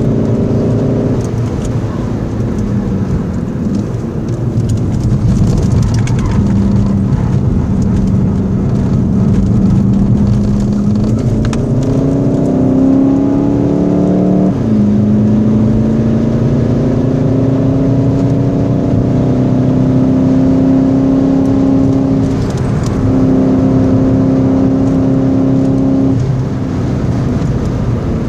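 Volkswagen Golf 7 GTD's 2.0-litre four-cylinder turbodiesel heard from inside the cabin under hard driving. The note climbs steadily with road speed, and its pitch drops sharply about halfway through at an upshift.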